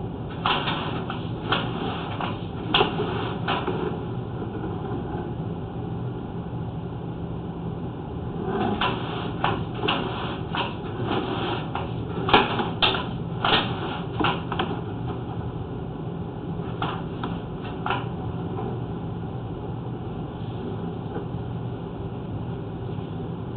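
Irregular clusters of sharp clicks and knocks over a steady low hum, in three groups: near the start, a longer run in the middle, and a brief one later.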